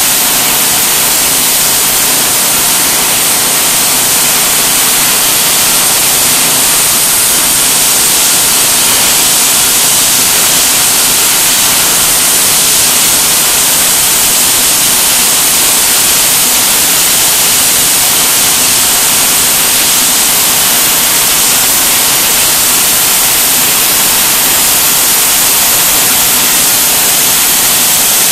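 Everlast PowerPlasma 50 plasma cutter torch cutting through metal plate: a loud, steady hiss of the arc and compressed air that runs without a break.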